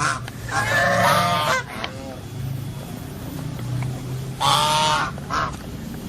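Domestic geese honking: a long, wavering honk about half a second in and another about four and a half seconds in, with a few short honks between, over a steady low hum.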